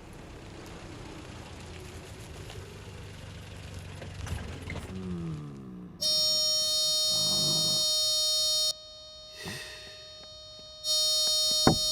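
A loud, harsh electronic buzzer sounds twice: once for about two and a half seconds just past halfway, and again for about a second near the end. Before it there is only a low, quiet rumble.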